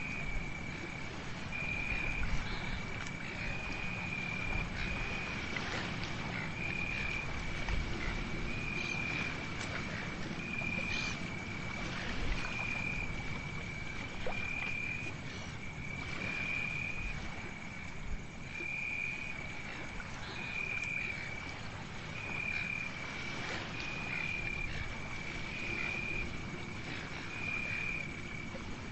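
Night chorus of calling animals: one continuous high-pitched trill that swells about once a second, over a steady hiss and a low rumble.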